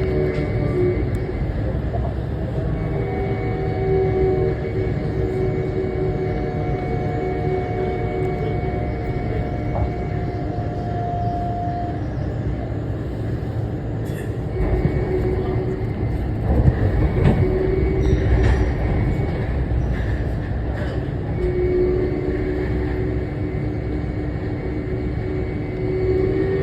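Ride inside a driverless airport shuttle train in motion: a steady rumble of the running gear under a whine from the traction motors that shifts in pitch and fades in and out. A louder rattle comes about two-thirds of the way through, and near the end the whine rises as the train speeds up.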